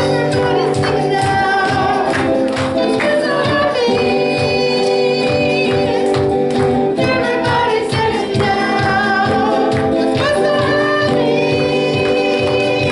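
Live worship music with singing over held sustained notes and an evenly pulsing bass.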